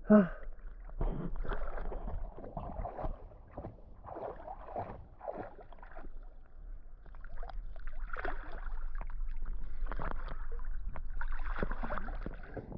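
Lake water splashing and sloshing around a swimmer, in irregular surges.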